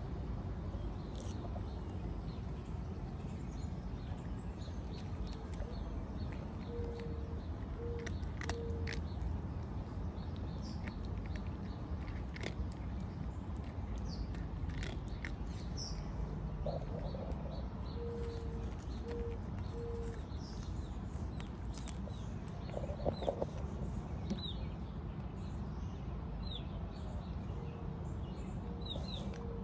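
Outdoor ambience with a steady low rumble and a cat crunching dry kibble in short, scattered bites. Birds chirp now and then, and a low call of three short notes repeats about every ten seconds.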